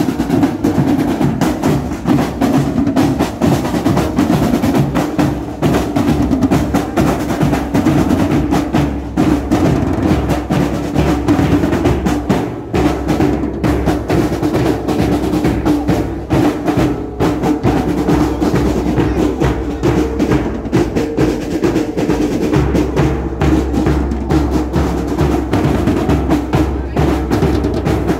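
A street drum group playing marching drums, snares among them, in a fast, unbroken rhythm with rolls.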